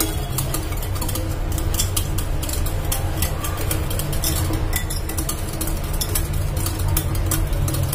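Wire whisk beating curd in a glass bowl, its wires clicking rapidly and irregularly against the glass as the curd is whipped smooth. A steady low hum runs underneath.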